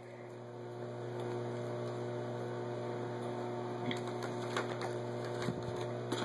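Steady electrical hum that swells slightly over the first second or so, with a few faint taps from a cardboard DVD box being handled.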